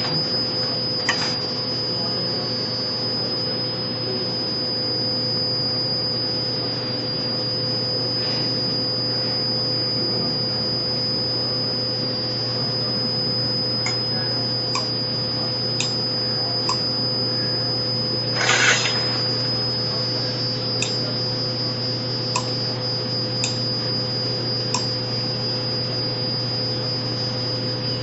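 Steady electrical hum with a constant high whine above it, with a few faint clicks and one short, louder rush of noise about two-thirds of the way through.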